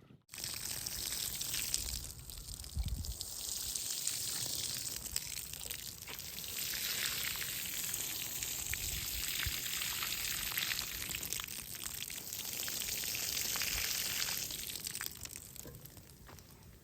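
Running water, a steady hiss that swells and eases twice, with a few low knocks underneath.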